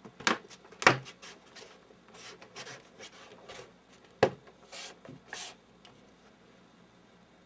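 Plastic back cover of an LCD monitor being pressed onto its housing: sharp snaps of the cover's clips catching, three loud ones (twice within the first second and once a little after four seconds), with plastic rubbing and scraping between them.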